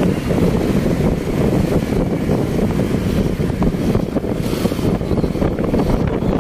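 Steady wind buffeting the microphone, mixed with the road and engine noise of traffic heard from a moving car.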